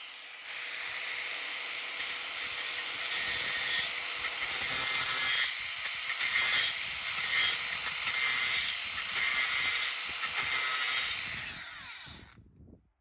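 Sanding on primer: a scratchy hiss that surges unevenly and stops about twelve seconds in.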